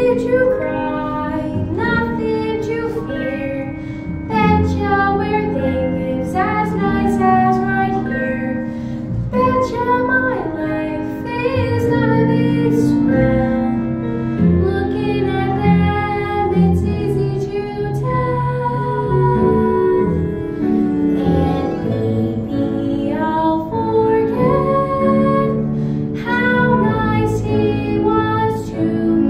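A girl sings a solo song with long held notes over instrumental accompaniment.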